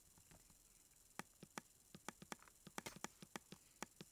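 Sharp, repeated clicks of a computer mouse button, clicking a scroll arrow to step down a list: a few spaced clicks about a second in, then a quicker run of several a second from about three seconds in.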